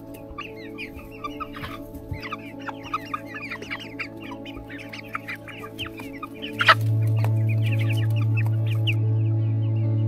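A flock of chickens clucking and chattering in quick short calls as they pour out of their coop. About two-thirds of the way through there is a sudden sharp sound, and background music with a steady low note comes in much louder under the last clucks.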